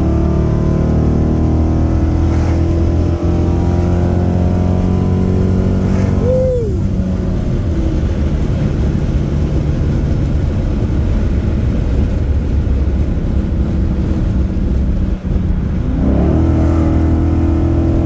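Chrysler 300 SRT8's 6.1-litre Hemi V8 running with its catalytic converters deleted, breathing through long-tube headers. The engine note climbs for the first six seconds, falls back, holds fairly steady, then climbs again about sixteen seconds in.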